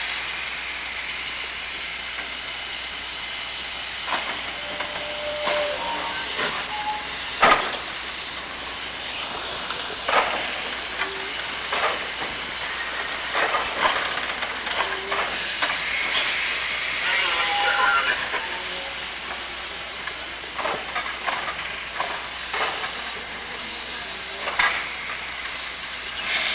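Sierra Railway No. 28 steam locomotive hissing steam steadily, with scattered metallic clanks and knocks; the loudest clank comes about seven and a half seconds in.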